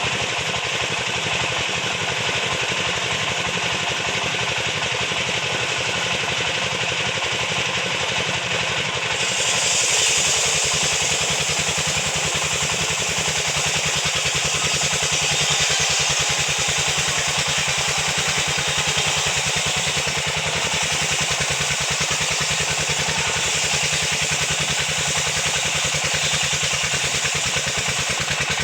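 Sawmill machinery engine running steadily with an even, rapid pulse. About nine seconds in, a brighter high-pitched hiss joins it and keeps going.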